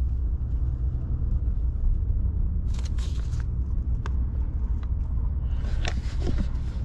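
Steady low rumble of a car heard from inside the cabin, with a short rustle about three seconds in and a few light clicks after it.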